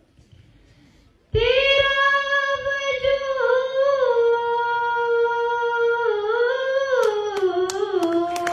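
A single high voice singing unaccompanied, holding long notes with wavering turns, starting about a second in after a brief pause. A few sharp clicks sound near the end.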